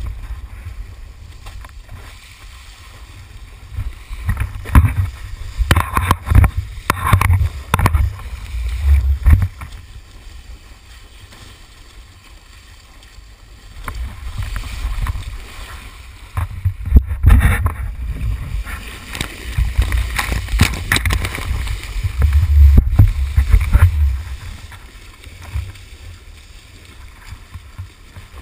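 Wind buffeting and water rushing and splashing against a pole-mounted action camera as a kitesurfer skims over choppy water on a surfboard. It comes in loud surges of low rumble and spray, with a quieter stretch in the middle.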